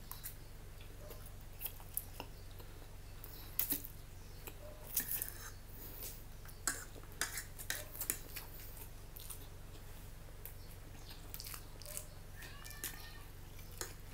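Fork and spoon clinking and scraping against a plate as noodles are twirled and lifted, with close-up chewing and mouth sounds in between. A steady low hum runs underneath.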